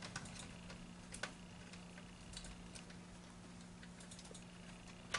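Faint, scattered clicks of a Phillips screwdriver turning the retaining screws of a Direct Logic 06 PLC's terminal strip, snugging them part-way, over a steady low hum.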